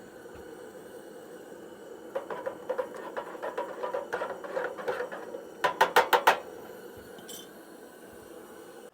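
Metal cookware and utensils clinking over a steady background hum: a run of light clinks about five a second, then five quick, loud strikes a little past the middle.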